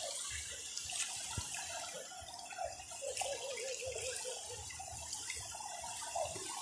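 Shallow seawater sloshing and trickling around someone wading through it, with a few faint clicks.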